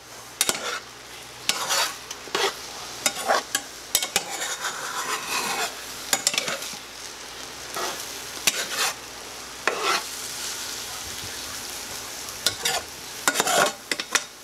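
Plastic spatula scraping and stirring scrambled eggs with cactus flowers around a small nonstick frying pan, over the steady sizzle of the eggs frying. The strokes come irregularly, with short pauses where only the sizzle is heard, and come quicker near the end.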